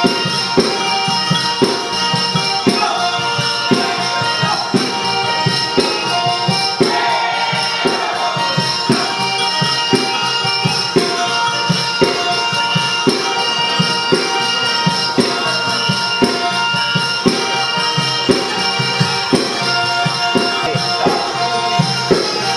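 Southern Italian folk dance music: a tambourine keeps a steady beat under held melodic notes.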